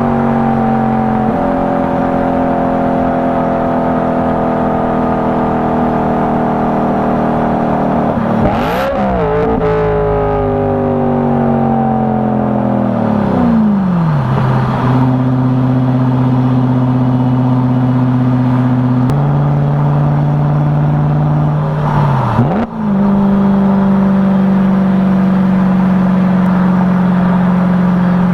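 BMW E92 M3's V8 running loud through a straight-piped exhaust, holding steady engine speeds for long stretches. Its pitch dips briefly and recovers twice, about nine and twenty-two seconds in, and falls away steadily a little before the middle.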